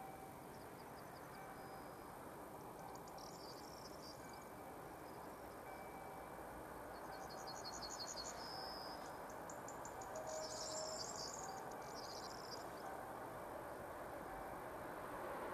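Insects trilling in short bursts of rapid chirps over faint, steady background noise that slowly grows louder, with a faint short tone repeating about every second and a half.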